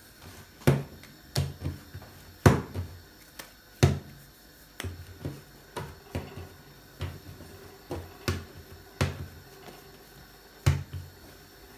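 Hands shaping a ball of semolina flatbread dough on a tabletop: irregular soft slaps and knocks as the dough is pressed and turned against the table, about one or two a second.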